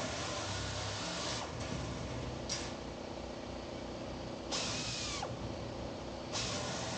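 A power tool running in short bursts, started and stopped sharply: it runs until about a second and a half in, cuts in briefly, runs again for under a second past the middle, and starts once more near the end.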